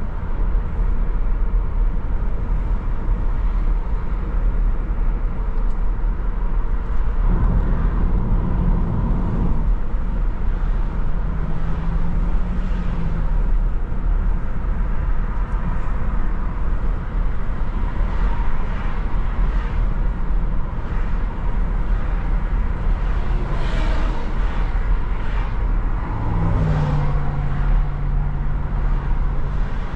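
Car driving through city streets: a steady low rumble of engine and road noise. A low hum comes in briefly twice, and a few brief swishes of passing traffic come about two thirds of the way through.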